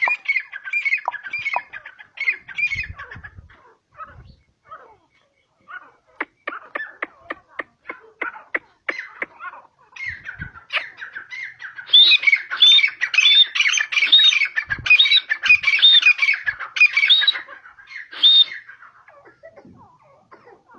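Grey francolin calling: a chattering run of notes, then a series of sharp ticks about four a second, then loud repeated high calls about two a second for several seconds before they stop.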